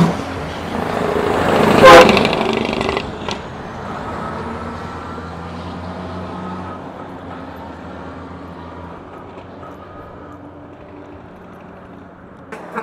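Diesel engine of a loaded truck pulling up a steep grade, passing close about two seconds in and then fading steadily as it moves away.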